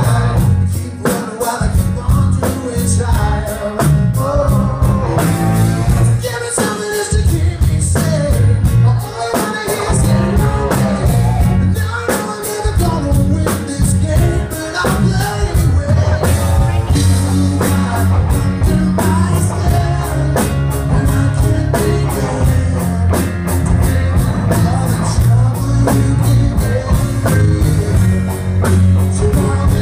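A man singing a song live, accompanying himself on an acoustic guitar, with a steady rhythmic beat and a heavy low end.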